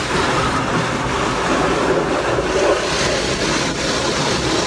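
Automatic car wash spraying water and foam over the car's windshield and roof, a loud steady rushing heard from inside the cabin.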